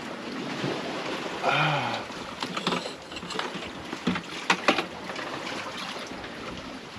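Steady rush of wind and water around a sailing yacht under way at sea. A short hummed voice comes about a second and a half in, and a few light knocks follow later.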